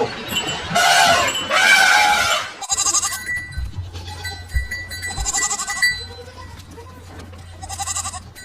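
Goats bleating: two long calls near the start, then shorter wavering bleats spaced out through the rest, over a low steady hum.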